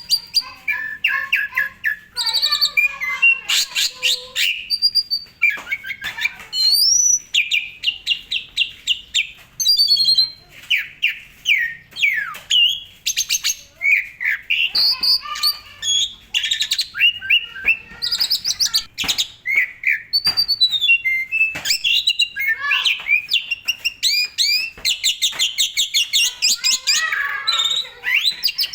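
Asian pied starling (jalak suren) singing a long, nearly unbroken song of rapid chattering trills, whistled notes, clicks and harsher squawks, the phrases changing every second or so.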